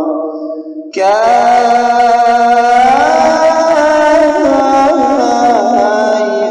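Arabic devotional singing in praise of the Prophet: one phrase fades out, then about a second in a new phrase starts with long held notes that slide slowly in pitch.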